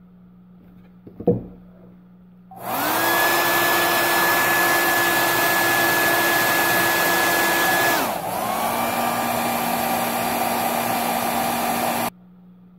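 A sharp knock, then a hair dryer switches on about two and a half seconds in and blows steadily with a whine, heating the phone. About five seconds later its whine drops in pitch and it runs a little quieter as it slows, then it is switched off near the end.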